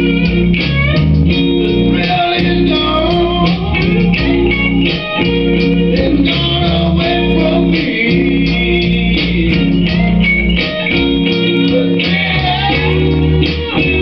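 Blues-rock riff on electric guitar through a Line 6 Spider Valve amp, with a low bass line underneath and bent lead notes sliding in pitch.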